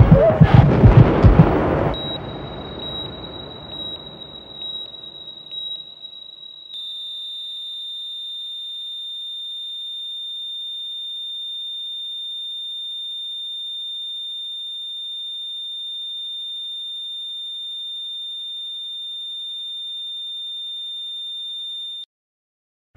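Loud blasts and rumble from a projection-show soundtrack die away over the first few seconds. A steady, high-pitched electronic tone comes in under them, shifts slightly about seven seconds in, holds, and cuts off suddenly near the end.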